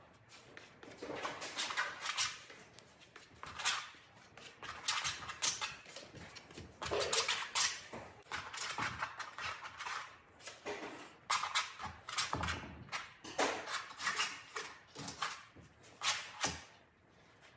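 Oil paint being scraped and dabbed onto a canvas: a run of short, irregular scraping strokes, one to three a second.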